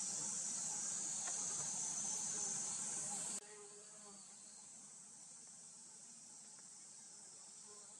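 Steady, high-pitched chorus of insects shrilling. It drops away abruptly a little over three seconds in, leaving only a faint outdoor background.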